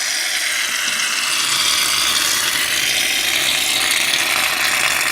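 Aerosol shaving cream can spraying foam in one long, steady hiss.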